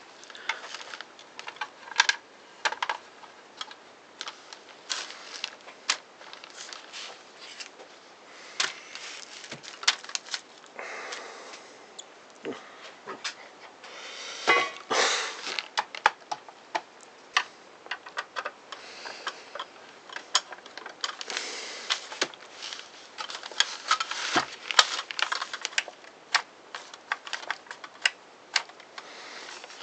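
Irregular clicks, taps and short scraping sounds of a Makita 5621 circular saw's housing being handled and screwed together by hand.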